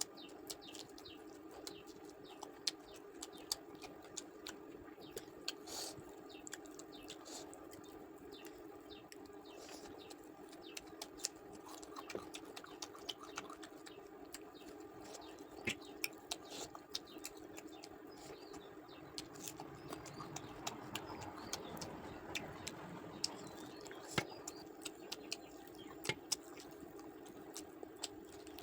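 A person eating chicken curry, with faint, scattered wet clicks and smacks of chewing over a steady low hum.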